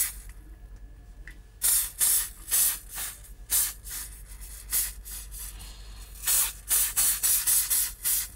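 Aerosol can of spray adhesive sprayed in many short hissing bursts, a few a second, starting about a second and a half in, coating a paper template.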